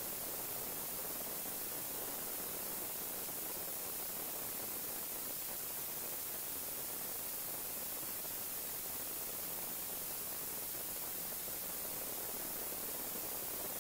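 Steady static hiss with no change in level or pitch; no separate sound from the pour stands out above it.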